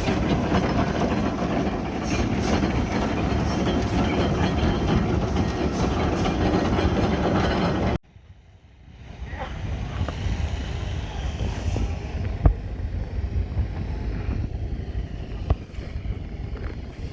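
Working steam engines: a loud, dense mechanical clatter and rumble that cuts off abruptly about eight seconds in. After a short gap, a quieter low rumble follows with a few sharp knocks.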